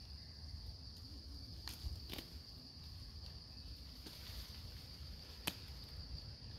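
Steady, faint high-pitched insect drone over a low rumble, with a few sharp clicks about two seconds in and again near the end.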